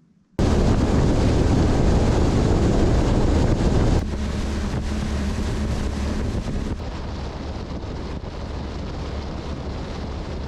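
Motorboat running at speed over open water: a steady engine drone under heavy wind noise on the microphone and rushing water. It starts abruptly just after the start and drops somewhat in level about four seconds in.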